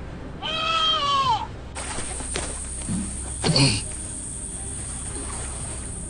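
An animal's drawn-out call, about a second long, falling in pitch at the end, then a shorter, louder sound a couple of seconds later, over a steady hiss.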